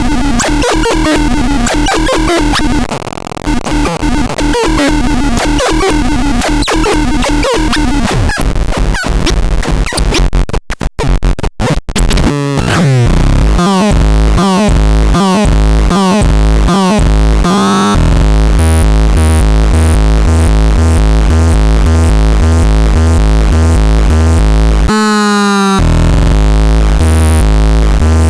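Synthesizer being played. For about the first twelve seconds it makes harsh, noisy tones full of rapid clicks, with pitches sliding downward, and it cuts out briefly a few times near the end of that stretch. After that come repeated quick downward zaps over a pulsing low bass pattern, which settles into a steady sequenced rhythm with short high blips and stacked rising and falling sweeps near the end.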